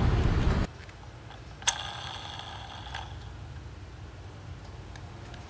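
Small clicks and taps of a hard plastic toy car being handled, with one sharper click about a second and a half in that rings briefly. A louder sound at the start cuts off suddenly within the first second.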